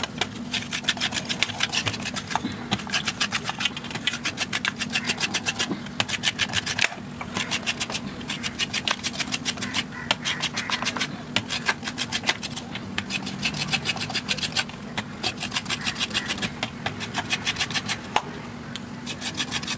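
Fresh coconut being grated by hand: a small metal scraper rasps the white flesh out of a half coconut shell in quick, rhythmic strokes, several a second, in runs with brief pauses, the shreds falling onto a steel plate.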